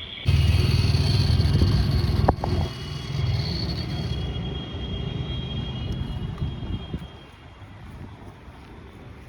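Remote-control monster truck's motor running as the toy drives through tall grass, starting abruptly and loudest for the first two seconds, with a sharp knock about two seconds in. It carries on a little quieter and drops away about seven seconds in.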